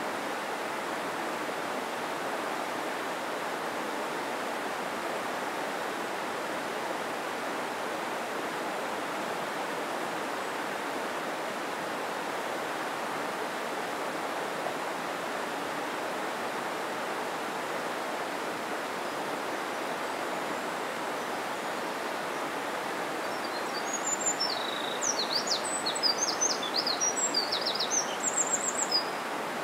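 Steady rush of a mountain stream flowing over rocks. About three-quarters of the way through, a small bird sings a quick run of high chirps for a few seconds.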